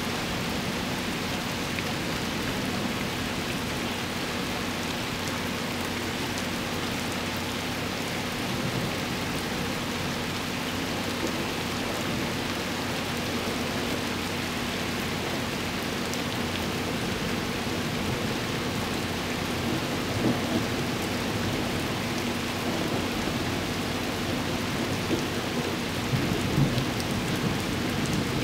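Steady rain falling, with a few short louder low rumbles about two-thirds of the way through and again near the end.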